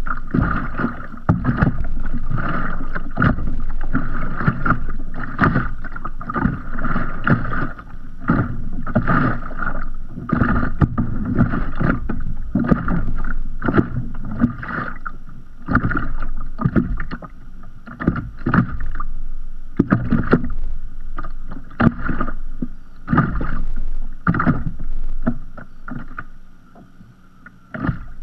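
Small sea waves lapping and slapping against a kayak's hull in an irregular run of short splashes, easing off near the end.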